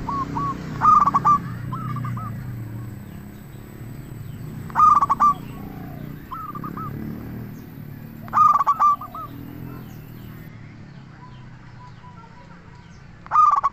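Zebra dove (perkutut) singing its cooing song, a quick run of clipped notes. The phrase comes four times, about four seconds apart, with fainter coos in between, over a low background rumble.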